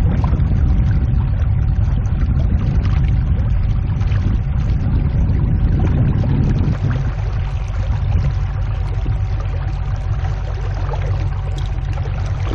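Boat moving across calm water: a steady low rumble with water noise and a faint steady hum, the mid-range hiss easing about seven seconds in.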